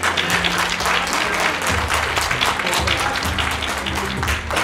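Audience applauding, many hands clapping, over background music with sustained low notes.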